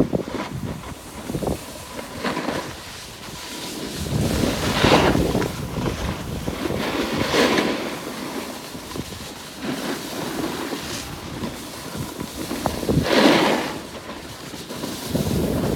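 Wind rushing over a phone microphone while sliding down a groomed ski slope, mixed with the hiss and scrape of snow underfoot; the rush swells louder several times.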